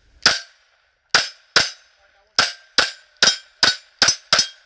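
Semi-automatic pistol fired nine times: a single shot, then four quick pairs with less than half a second between the two shots of each pair, as the shooter brings the gun back down from recoil for the second shot.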